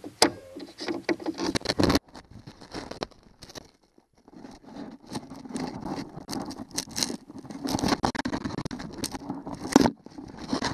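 Irregular clicking, clinking and scraping of a metal hand tool and gloved hands working on through-hull mounting bolts, mixed with rustling handling noise. The sound breaks off sharply about two seconds in, then the rustling and scraping pick up again.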